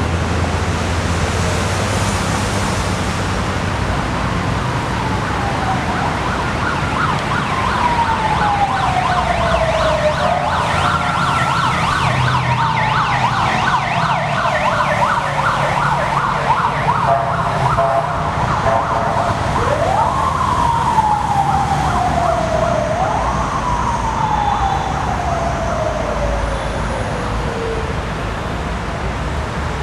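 Emergency vehicle siren wailing: each cycle jumps up quickly and then slides slowly down in pitch, repeating several times and dying away near the end, over a steady traffic rumble.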